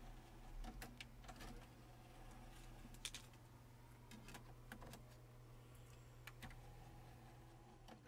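Faint scattered clicks and taps of a plastic CD case being handled and a disc being set into a CD player's tray, with one sharper click about three seconds in, over a steady low hum.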